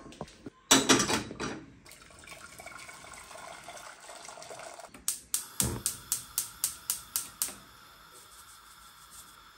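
Kitchen tap running water into a pan, a loud gush at first and then a steadier flow. Midway there is a quick run of about a dozen sharp clicks, about five a second.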